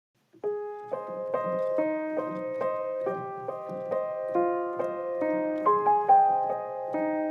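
Background piano music that starts about half a second in, with soft notes played in a gentle, steady rhythm.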